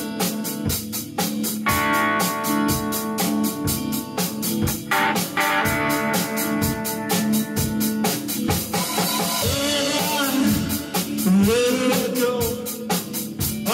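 Live rock band playing: a drum kit keeps a steady beat under electric guitar chords. A man's singing voice comes in over the band a few seconds before the end.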